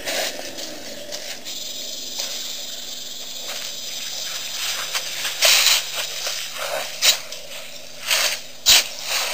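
Steady hiss of an outdoor webcam microphone with brushing and scraping noises as an African elephant moves close by. The noises grow louder and come in several short bursts in the second half, and a sharp knock comes near the end.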